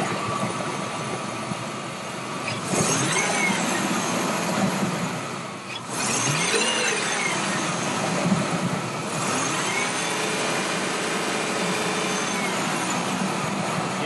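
A car engine running under the hood, revved up and let back down about three times.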